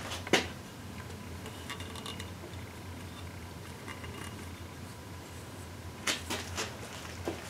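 Light handling sounds of an engine's metal oil pickup tube as its O-ring is changed: a couple of small clicks at the start and a few more about six seconds in, over a low steady hum.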